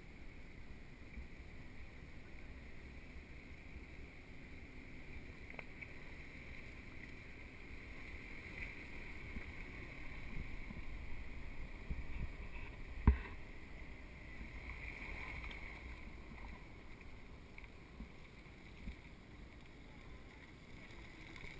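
Steady low background rumble and noise, with one sharp knock about thirteen seconds in.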